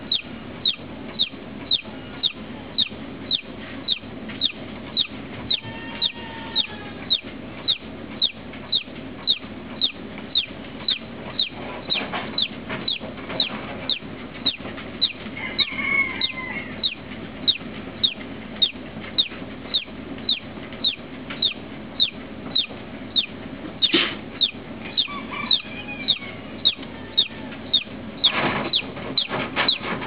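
A newly hatched chick peeping over and over: short, high, falling peeps, about three every two seconds, over a steady low hum.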